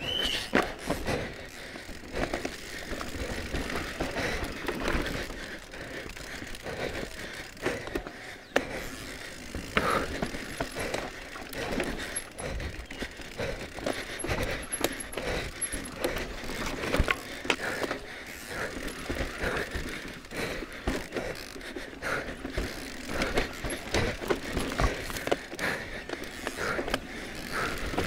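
Cube Stereo Hybrid 140 SLT electric mountain bike descending a rough forest trail at race speed: continuous rattling and clattering of the chain, frame and components with irregular knocks as the tyres hit rocks and roots, over the hiss of tyres on dirt.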